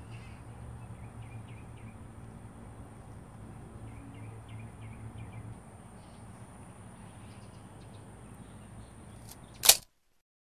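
Outdoor background noise on a phone microphone, with a faint steady high whine and faint high chirps twice, ending in one sharp, loud click as the sound cuts out.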